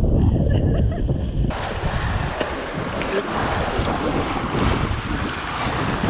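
Strong wind buffeting the microphone and water rushing and splashing along the hull of a Sunfish sailing dinghy moving fast in high wind. About a second and a half in, the hiss of spray and wash becomes much stronger.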